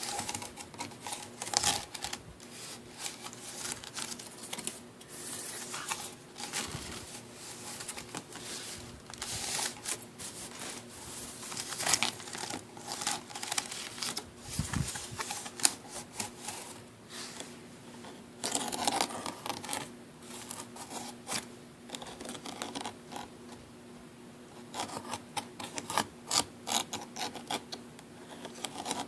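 Scratching on a wicker picnic basket: an irregular run of crackly clicks and scrapes that comes and goes.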